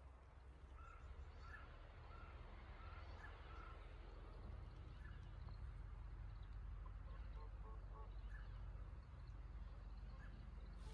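Ducks giving short, faint calls: a run of about five quick notes from about a second in, then a few lower ones later, over a low steady rumble.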